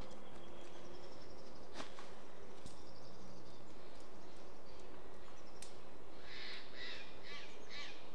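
A corvid gives a run of five harsh, raspy calls, about two a second, near the end. Before them come faint high bird chirps and a single sharp click, over a steady outdoor hiss.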